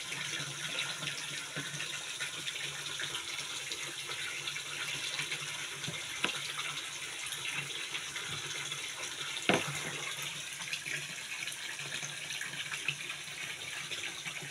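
Steady running, splashing water in a concrete fish tank, with a sharp knock about nine and a half seconds in and a fainter one around six seconds.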